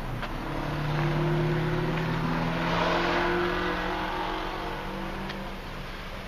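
A car engine running with a steady low hum, joined by a wash of road noise that swells to a peak about three seconds in and then fades.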